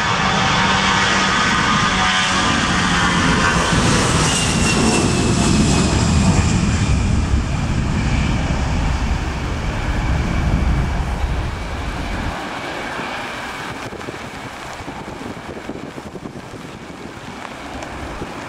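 Airbus A320 jet engines at take-off thrust as the airliner rolls past and lifts off: a loud rumble with a whine that falls in pitch as it goes by. About two-thirds through, the deep rumble drops away and the engine sound fades as the jet climbs off.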